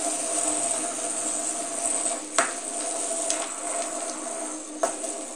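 Two small plastic spinning tops spinning on a wooden tabletop with a steady whirring scrape, clacking together sharply about two and a half seconds in and again near the end.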